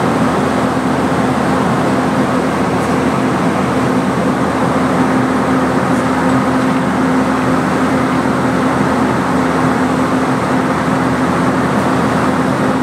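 Stationary locomotive's undergear machinery running steadily: a loud, even rush of noise with a constant low hum beneath it.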